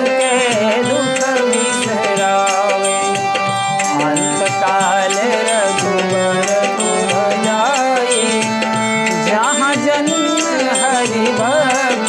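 Hindu devotional music: tabla with harmonium holding steady notes and a wavering, ornamented melody line over them.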